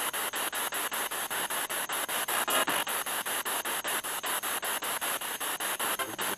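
Spirit box sweeping through radio stations: hissing static broken by short dropouts about six or seven times a second, with brief snatches of radio voice about two and a half seconds in and again near the end.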